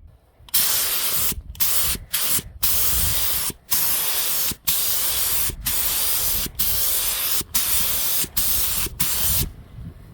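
Compressed-air paint spray gun hissing in repeated passes over car body panels, the trigger released for a moment between passes; it stops near the end.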